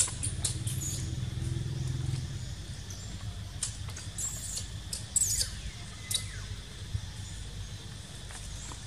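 Scattered short, sharp crackles and chirps, loudest about five seconds in: dry leaf litter rustling as macaques shift and move on the ground, over a low rumble in the first two seconds.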